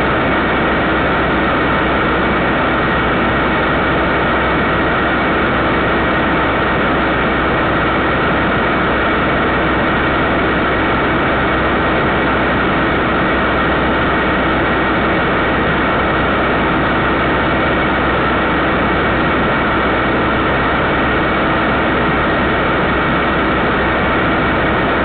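Steady, unchanging hiss with a constant hum and a faint fixed whine. It is typical of a security camera's audio channel picking up electrical noise.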